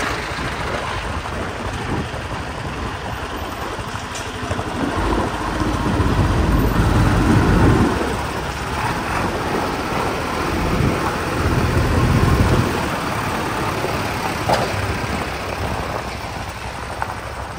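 Vehicle engines running on the move over a steady rushing noise, with a deeper rumble that swells up twice.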